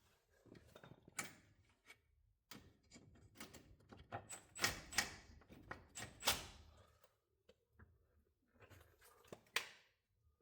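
Hand tools clicking and clanking against metal suspension parts: a string of sharp, separate knocks and clicks, loudest in a cluster around the middle and once more near the end.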